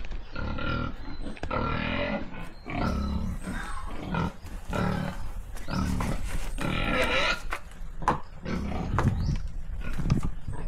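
Sow grunting over and over, about once a second.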